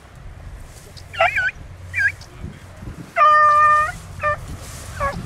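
Beagle hounds baying while running a rabbit: short, wavering yelps, then one long, steady bay a little past three seconds in, the loudest call, and more yelps near the end.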